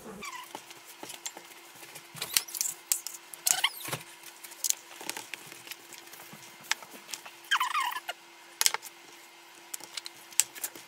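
Scattered sharp knocks and taps: a Pomeranian knocking to be let out, with a short high squeaky whine about eight seconds in. A faint steady hum runs underneath.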